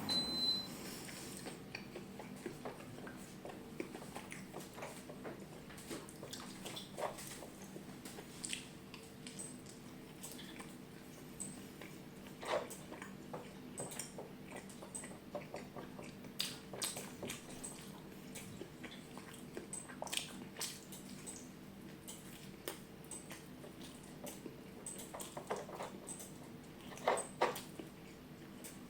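Close-miked eating: a person chewing with scattered wet mouth clicks and smacks, a couple of louder bites near the end, over a faint steady hum.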